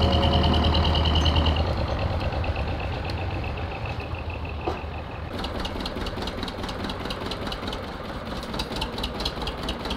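Tractor engine running, louder for the first couple of seconds and then settling lower, with a rapid even clatter in the second half.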